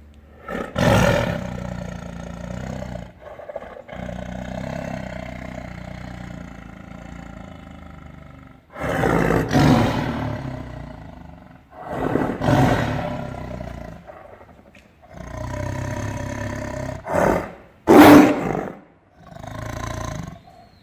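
Tiger roaring: a long drawn-out roar that starts about a second in and slowly fades, followed by about six shorter roars, the loudest near the end.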